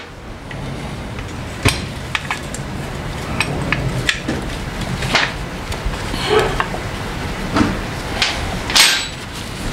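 Hand tools on the steel engine mount bolts of a Harley-Davidson Sportster: scattered, irregular metal clinks and knocks as the mount hardware is worked loose, over a steady low hum.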